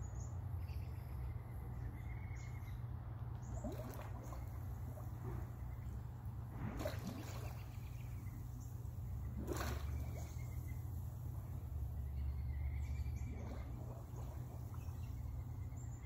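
Water bubbling and splashing at the pool surface around a scuba diver's head, in brief surges every few seconds, over a steady low hum, with birds chirping now and then.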